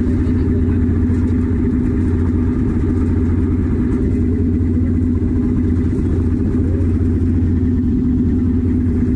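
Fishing boat's engine running steadily at a constant speed, a loud low drone with a steady hum.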